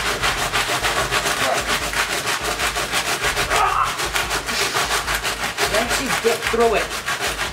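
A long kitchen knife sawing back and forth through a cardboard box of dry spaghetti, with a fast, even rasping scrape of blade on cardboard.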